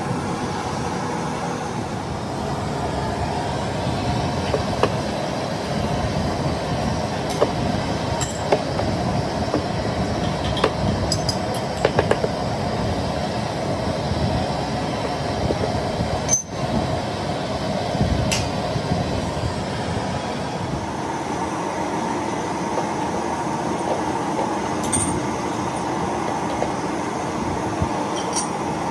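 Lead-acid battery plates and separators clinking and tapping as they are stacked and knocked into line with a flat metal tool, scattered sharp clicks over a steady background rumble.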